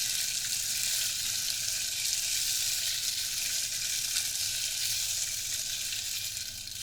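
Water Circle, a rain-stick-style water-sound instrument, played for a continuous rain-stick sound: an unbroken, even rushing hiss that eases off near the end.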